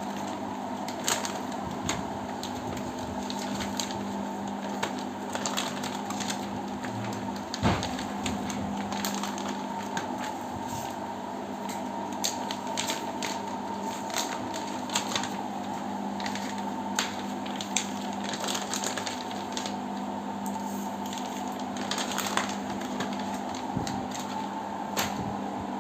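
A steady mechanical hum with many irregular sharp clicks and light rattles over it, like small hard objects being handled.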